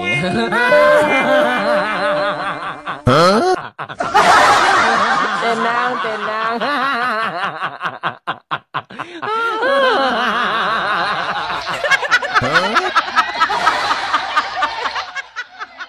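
Laughter in quick repeated ha-ha bursts, running on with short breaks about four seconds in and again about eight seconds in.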